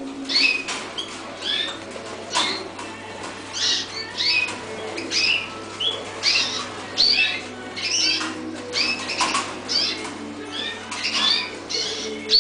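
Many caged red-factor canaries calling with short, quick chirps, several a second, overlapping from different birds, with brief wing flutters.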